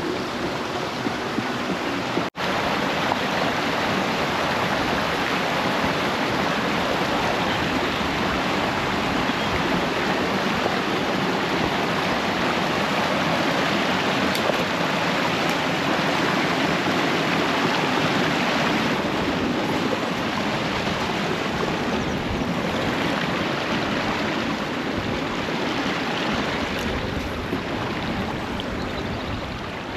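Steady rush of flowing water, like a stream, with a brief cut in the sound about two seconds in.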